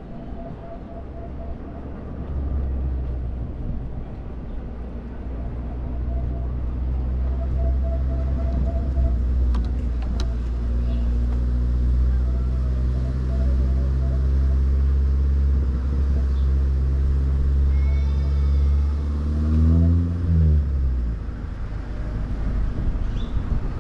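Street traffic: a nearby motor vehicle's engine gives a low, steady rumble that grows louder. About twenty seconds in its pitch rises and falls once, then the rumble drops away.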